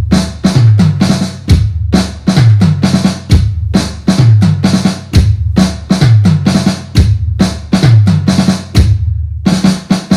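Drum-led music with a fast, steady beat of bass drum and snare hits, breaking off briefly near the end.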